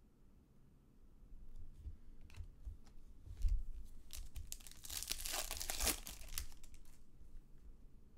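A trading-card pack's wrapper is torn open and crinkled, a dense rustle lasting about a second and a half near the middle, amid light clicks and a soft thump from cards being handled on a table.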